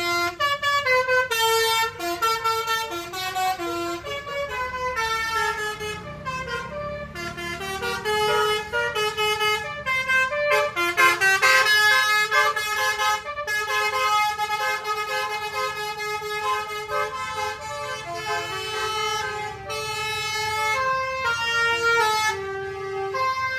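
An Indonesian bus's melodic horn playing a tune, its notes stepping two or three times a second.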